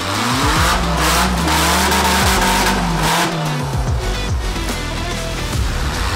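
Off-road 4x4 truck engine revving up and dropping back several times while rock crawling, with background music playing underneath.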